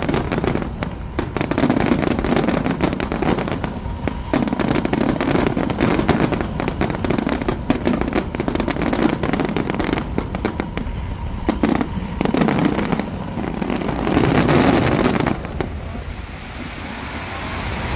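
Aerial fireworks going off in a dense barrage of bangs and crackling, easing off near the end.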